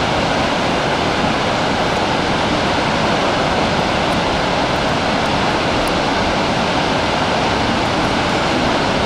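Gullfoss, the two-tiered waterfall on the Hvítá river, rushing steadily and loudly as the water plunges into the gorge.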